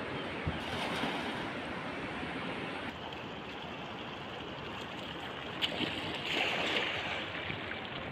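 River water rushing steadily over stones, with a sharp knock about five and a half seconds in.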